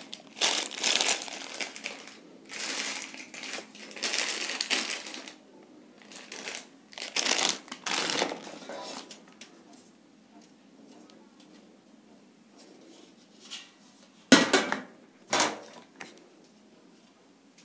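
A clear plastic bag of metal bolts being handled and shaken, the bolts clinking against each other inside the crinkling plastic, for about the first nine seconds. After a quiet spell come two sharp knocks about a second apart as a metal mesh shelf panel is picked up.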